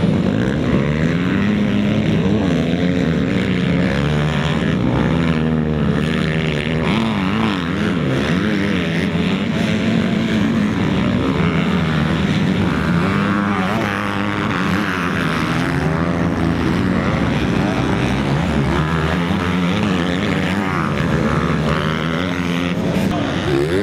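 Several motocross dirt bike engines revving up and down at once, their pitches overlapping and rising and falling continuously.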